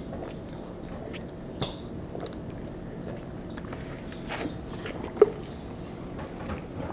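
Several people gulping soda: scattered swallowing and mouth sounds with small clicks, and one sharp click about five seconds in.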